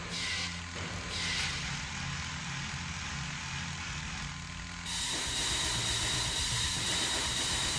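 A low mechanical rumble and hum with two short hisses, then a louder steady hiss with a high whine from about five seconds in.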